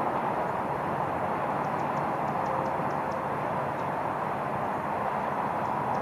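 Steady outdoor background noise with no dove cooing, and a run of faint, high, short bird chips from about one and a half to four seconds in, with one more near the end.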